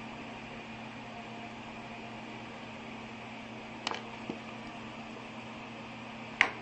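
Steady low hum and hiss, broken by a sharp click about four seconds in and a louder one near the end.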